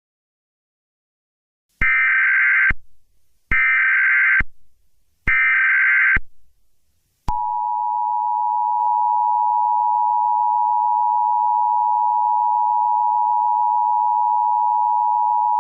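Emergency Alert System alert tones: three short, buzzy SAME data bursts, then the steady two-tone EAS attention signal held for about eight seconds.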